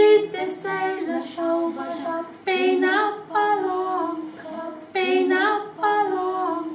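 Two women singing a folk song unaccompanied, in two-part harmony, the phrases broken by short breaths.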